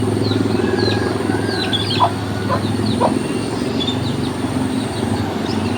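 Water trickling steadily, with birds chirping in short, falling notes over it and a few brief lower animal calls.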